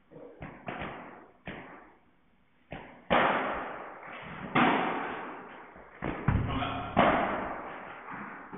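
Padel ball knocks during a rally: rackets striking the ball and the ball bouncing off the court and walls. Sharp hits come at uneven intervals, the loudest about three, four and a half and seven seconds in, and each rings out in the hall's echo.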